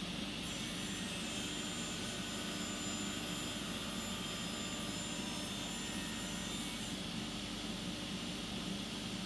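Table saw running steadily as a small block of wood is fed into the spinning blade along a crosscut fence; a thin, high whine rides on the saw's hum from about half a second in until about seven seconds in.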